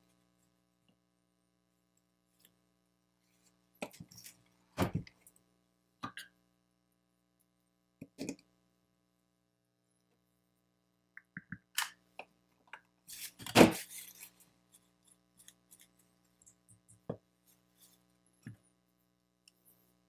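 Scattered clicks and knocks of tools and cylindrical lithium-ion cells being handled on a workbench while the cells are readied for soldering. The loudest knock comes about two-thirds of the way through, over a faint steady hum.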